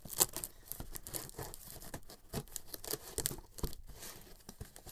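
Packing tape on a cardboard box being slit and torn open with a knife: a run of short, irregular scrapes and rips, with cardboard crinkling.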